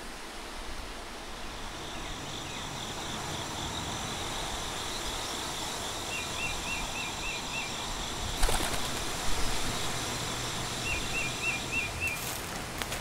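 Outdoor ambience with a steady background hiss and birds singing: a high trill repeated for several seconds, and two short runs of quick chirps. A couple of sharp knocks about two-thirds of the way through are the loudest sounds.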